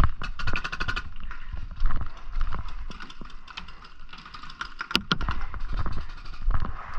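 Paintball markers firing on the field: rapid strings of sharp pops, thickest in the first second, with single pops scattered after and one sharp crack about five seconds in.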